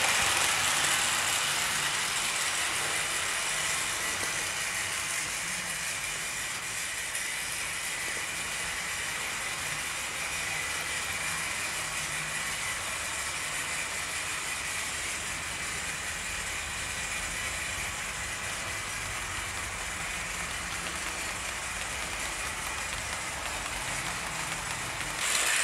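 OO gauge model trains running on the layout: a steady rolling rush of coach wheels on the track with a faint motor whine. It is loudest at the start as the coaches pass close by, eases off over the first few seconds, then holds steady.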